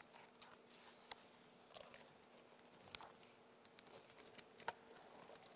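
Near silence: room tone with a faint steady hum and a few small, scattered clicks.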